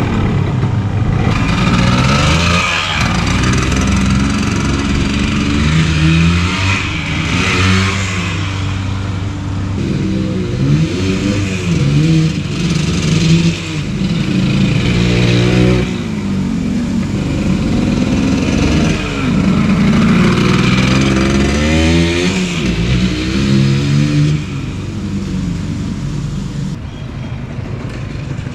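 Vintage 1974 Yamaha Enduro's two-stroke single-cylinder engine under way on a ride, its pitch climbing and dropping again and again as it revs up and shifts, easing off a little near the end.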